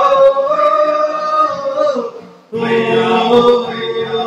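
A group of men singing together in long held notes, a chant-like 'oh, hey'. The singing fades away a couple of seconds in and comes back strongly about half a second later.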